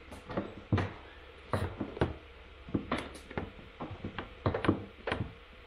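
Irregular light knocks and taps from handling: a mains hook-up cable being fed through a hole in a van's sheet-metal side panel, with the plastic hook-up socket housing knocking against the panel.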